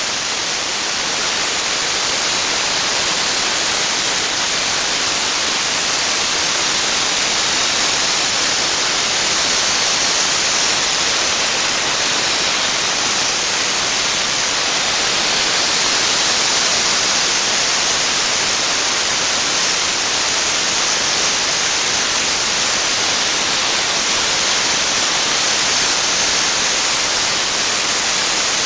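Dry-ice blasting gun hissing steadily as compressed air drives dry-ice pellets onto an engine, a loud, even hiss with no breaks.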